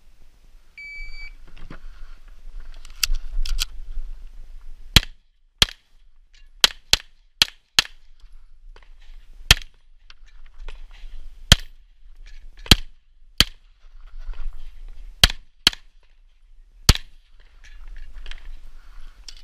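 A shot timer's start beep, then about fifteen shots from a Tanfoglio Stock II 9x19 pistol, many fired as quick pairs with pauses between for target changes.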